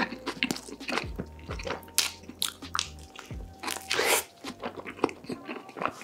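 Close-miked mukbang eating sounds: bites into food drenched in cheese sauce, then wet, smacking chewing, in short irregular bursts, over background music.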